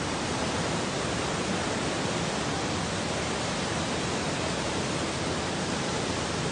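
Muddy river in flood rushing through rapids and over debris: a steady, unbroken rush of whitewater, swollen by heavy rain.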